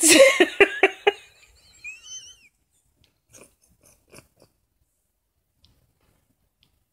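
A woman laughing: a quick run of breathy laughs in the first second, then a short high-pitched squeal. A few faint breaths follow about four seconds in.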